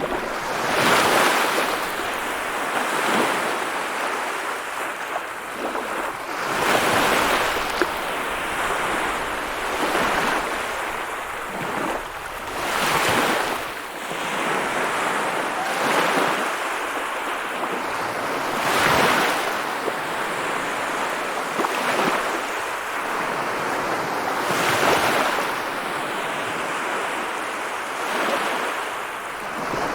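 Sea waves breaking and washing ashore in a steady rhythm, a surge of surf about every three seconds between quieter hiss.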